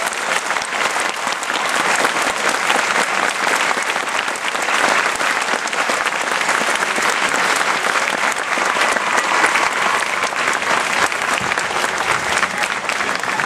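Audience applauding steadily: dense clapping from many hands.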